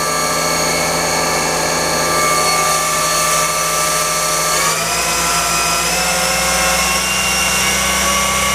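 Haas ST-10Y CNC lathe spindle running at about 3,000 RPM, a steady whine of several tones over a low hum. About halfway through, the pitch steps up and keeps rising slightly as the spindle speeds up.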